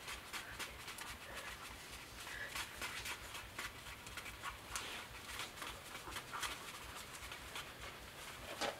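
Faint, irregular scraping of a stirring stick in a paper bowl as two-part epoxy is mixed.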